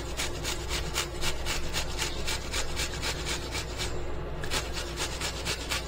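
Onion being grated on a flat handheld metal grater: quick, even rasping strokes, about four or five a second, with a short pause about two-thirds of the way through.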